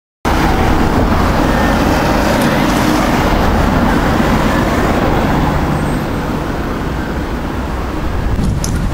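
Steady, loud city street traffic noise: the rumble of passing road vehicles, cutting in abruptly about a quarter second in.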